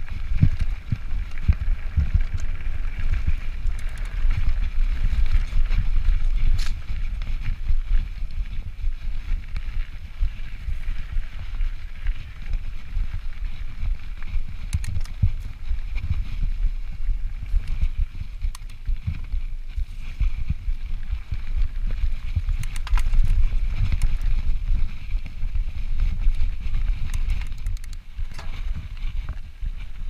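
Wind buffeting a chest-mounted action camera's microphone while a 2017 Yeti SB5 full-suspension mountain bike rolls over a rocky dirt trail, with an uneven low rumble from the tyres and occasional clicks and rattles from the bike.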